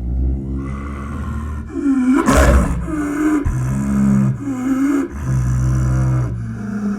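Snow leopard vocalizing: a low, continuous rumbling growl broken by several short calls that bend in pitch, with the loudest, harshest call about two and a half seconds in.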